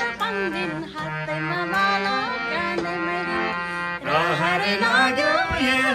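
Harmonium playing sustained notes and chords, with a voice singing an ornamented melody over it, strongest in the last two seconds.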